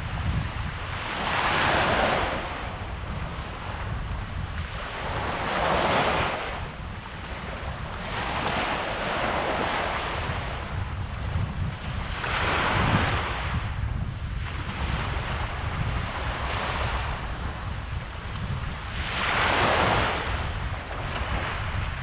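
Small waves breaking and washing up a sandy shore: a rushing surge of surf every few seconds, five in all, over a steady rumble of wind on the microphone.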